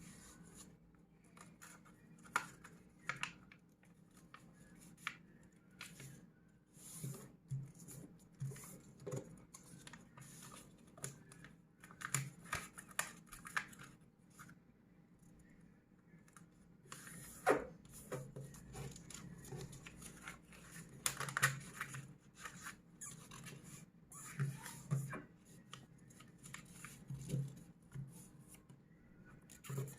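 Sheet of paper being folded by hand: faint, irregular rustling, scraping and crisp creasing sounds, with sharper crinkles about 17 and 21 seconds in.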